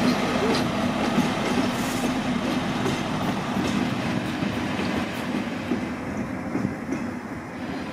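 Two coupled SNCF Infra diesel locomotives moving away along the station tracks. Their engine drone fades gradually, with wheels clicking over rail joints.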